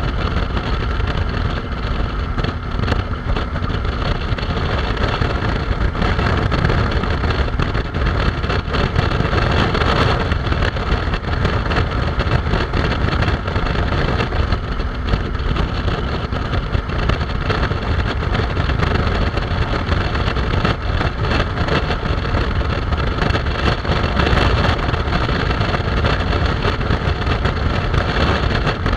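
Suzuki V-Strom 650 motorcycle cruising at steady highway speed: heavy wind rush over the microphone with the engine's running drone underneath, even throughout.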